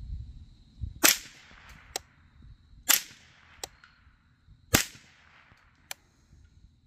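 Three shots from a Rock Island Armory (Derya) TM22 semi-automatic .22 LR rifle firing CCI Standard rounds, evenly spaced a little under two seconds apart, each a sharp report with a short echo. A much fainter click follows each shot about a second later.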